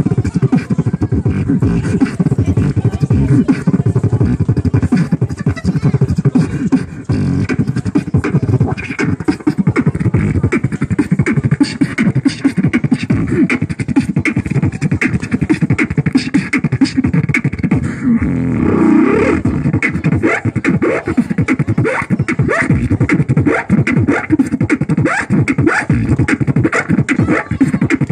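Beatboxing into a microphone, played through a small amplifier speaker: a fast, unbroken stream of drum-like vocal beats. About two-thirds of the way through, the beats give way for a moment to a held, pitched vocal sound.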